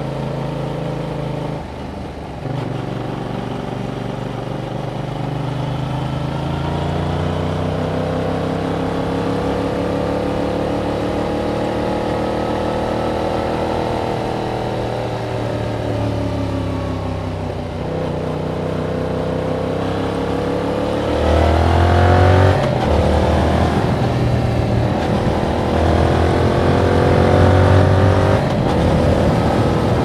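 2021 Yamaha MT-07's 689 cc parallel-twin engine through its original exhaust, under way: the revs drop briefly near the start, climb slowly for about ten seconds, ease off, then rise again with breaks between gears, and it runs louder in the last third.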